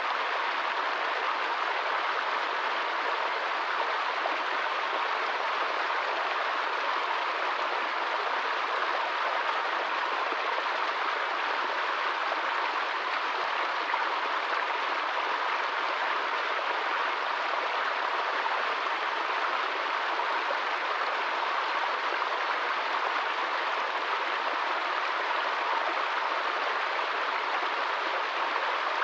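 Small stream running over rocks in a little cascade: a steady, even splashing of water.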